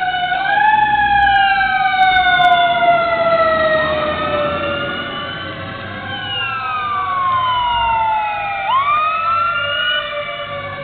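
Fire engine sirens wailing, at least two overlapping, each falling slowly in pitch and then sweeping quickly back up.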